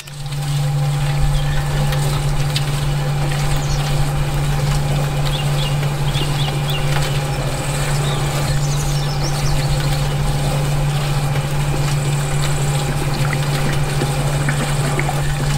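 Small electric motor of a model concrete mixer truck running with a steady low hum, with wet concrete pouring from its chute near the end.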